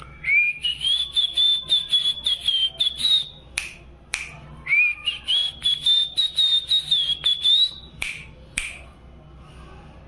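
Cockatiel whistling two long phrases on request. Each slides up and then holds a high, choppy note, with short sharp chirps between and after them.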